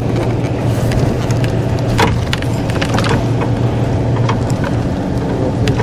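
Steady low drone of a motor vehicle on the move, with scattered rattles and knocks.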